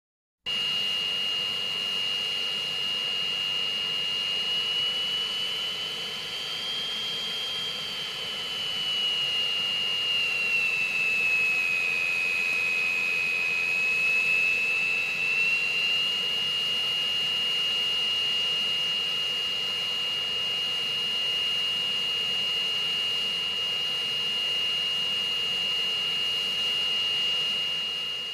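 Jet engine running: a steady rush of noise with a strong high-pitched turbine whine. The whine rises slightly, then dips and settles back to a steady pitch; the sound starts abruptly and begins to fade near the end.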